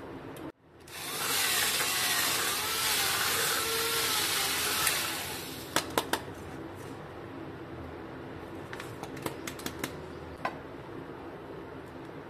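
Handheld electric coconut scraper's spinning stainless-steel dome cutter grating the meat out of a coconut half: a loud rasping whir for about four seconds, its pitch wavering under load, then a quieter running sound broken by several sharp clicks.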